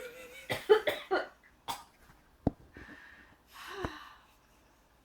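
A person hiccuping: a few short breathy bursts in the first second and a half, then two sharp hiccups a little over a second apart, the second one voiced.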